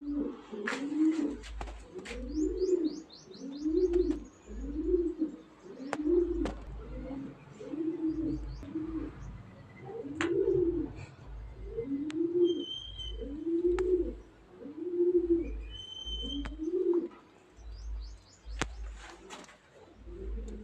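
Bird cooing: a low, arched coo repeated about once a second, with a few high chirps and short high calls in between and scattered sharp clicks.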